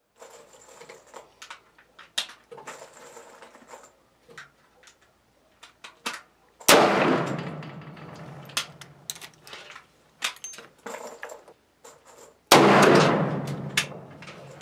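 Two shots from a Thompson/Center Contender single-shot pistol chambered in .35 Remington with a 14-inch barrel, about six seconds apart, each followed by a long echo that dies away. Light clicks and knocks come before and between the shots.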